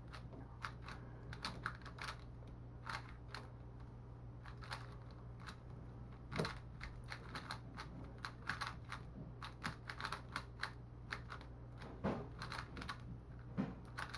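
Valk Mini 3x3 speedcube being turned fast in a solve: a rapid, irregular run of small plastic clacks, several a second. The cube is catching during the turns.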